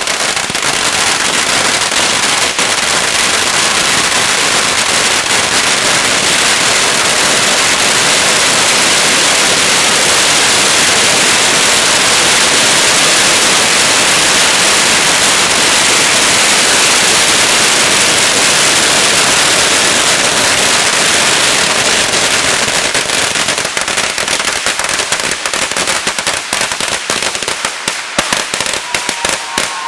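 About 8000 firecrackers going off in a continuous, dense rapid-fire crackle of bangs. Over the last several seconds the bangs thin out to scattered separate pops.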